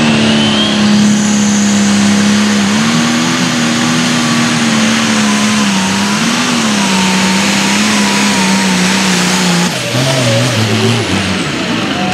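Turbocharged diesel engine of a Limited Pro Stock pulling tractor running flat out under load. It holds a steady high-rpm drone with a high turbo whine over it, then about ten seconds in the note drops suddenly and falls away as the throttle comes off.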